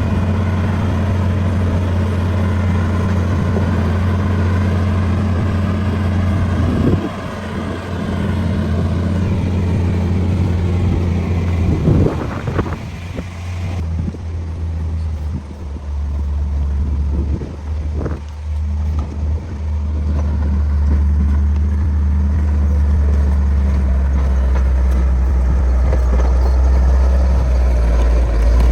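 Heavy road-construction machine's engine running steadily at a low, even pitch, with a few knocks now and then.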